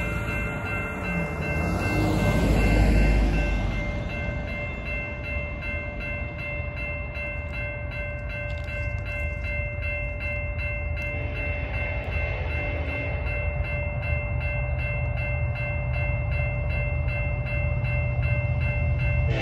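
Western-Cullen-Hayes electronic crossing bell sounding a steady, unbroken chord of tones rather than separate strokes, which the uploader takes for the e-bell having died. A vehicle rumbles over the crossing about two to three seconds in.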